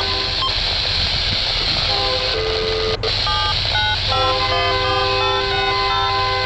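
Diesel locomotive air horn on an approaching freight train led by Union Pacific SD70Ms, sounding a chord in blasts: one blast ends just after the start, broken short notes follow around two to three seconds in, and a long blast begins about four seconds in. A steady low rumble runs underneath.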